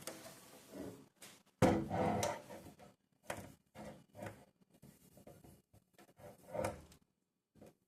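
Irregular clunks, knocks and rustling of containers and jars being handled and moved around in a fridge, the loudest a sudden clunk about one and a half seconds in.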